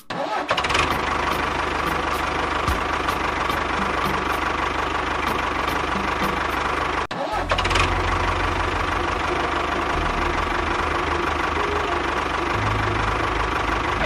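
A tractor engine running steadily. About seven seconds in it cuts out for a moment, then catches again and runs on with a deeper, pulsing low rumble.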